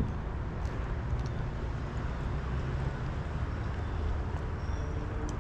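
An engine running steadily at a low idle, with a sharp knock right at the start.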